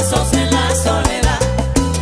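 Salsa band playing an instrumental passage with no singing: a moving bass line under regular percussion strikes.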